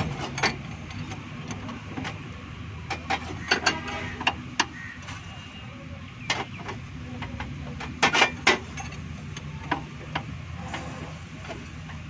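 Scattered sharp metallic clicks and knocks of hands and tools on the engine while the four-cylinder engine is rotated by hand to bring cylinder three up for tappet adjustment. A quick cluster of knocks comes about eight seconds in.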